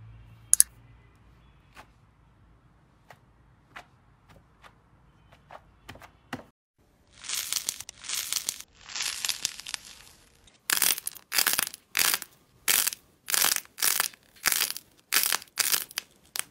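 Close-miked hands working slime, foam and squishy toys. There are a few faint sticky clicks and pops at first, then long crackling squeezes about halfway through, then short crunchy crackles repeating at nearly two a second.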